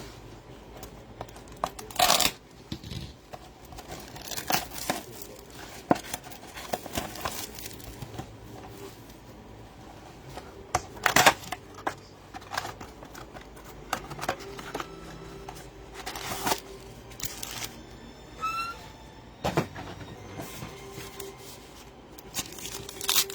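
Trading-card packaging being handled: a cardboard blaster box opened and foil packs torn and crinkled, with scattered sharp clicks and rustles as the cards are handled.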